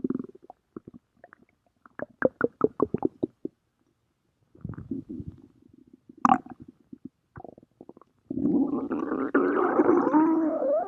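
Stomach growling: a quick run of short gurgles, a few more gurgles and a sharp squelch, then from about eight seconds in a long growl that wavers up and down in pitch.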